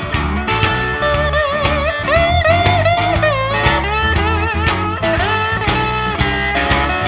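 Blues-rock song, instrumental passage: electric lead guitar playing bending, wavering notes over a bass line and a steady beat.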